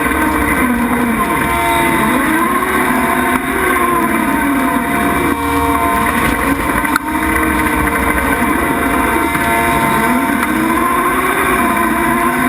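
Skid steer running a brush mower through weeds: a steady engine-and-hydraulic drone whose pitch dips and recovers every few seconds as it loads and unloads, with a single sharp click about halfway through.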